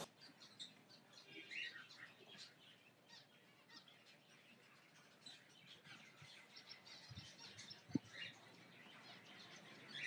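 Faint, scattered chirps and short calls of a flock of cockatiels, with a single sharp knock about eight seconds in.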